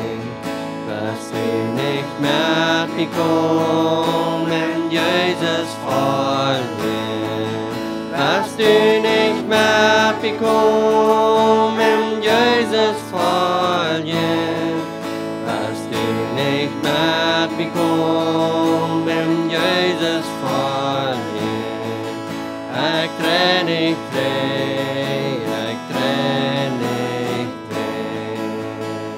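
Acoustic guitar strumming under a man and a woman singing a worship song with long held notes, trailing off near the end.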